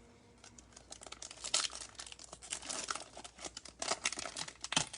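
Crinkling and tearing of a foil trading-card pack wrapper being handled and opened, with quick sharp rustles starting about half a second in.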